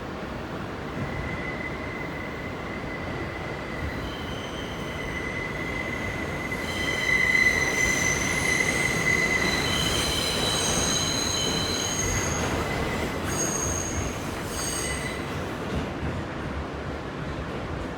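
Kawasaki R160B subway car running between stations: a steady rumble of wheels on rail with a high, multi-toned metal-on-metal wheel squeal that comes in about a second in, is loudest around the middle and dies away near the end.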